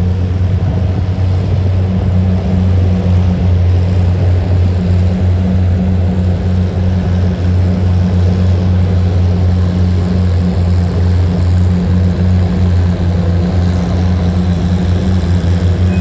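The engines of a tandem Oliver 880 (two Oliver 880 tractors coupled together) running under heavy load at a steady pitch while pulling a weight-transfer sled.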